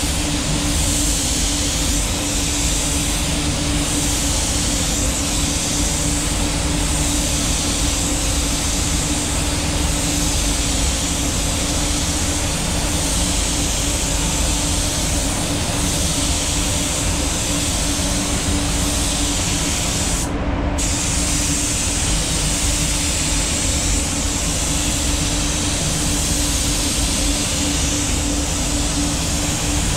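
Compressed-air spray gun hissing steadily as it sprays paint onto a car hood, with a steady low hum underneath. The hiss cuts out for a moment about twenty seconds in.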